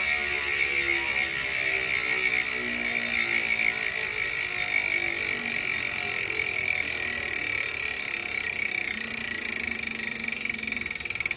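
Speedone Sniper V3 150-tooth ratchet-type rear hub freewheeling, its pawls clicking so fast they merge into a steady high buzz. Near the end the clicks begin to separate as the wheel slows.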